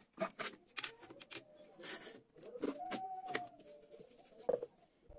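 Potato on a skewer being twisted through the blade of a homemade spiral cutter made from a plastic jar: a run of crisp clicks and scraping as the blade slices the potato, with a few short squeaks mixed in.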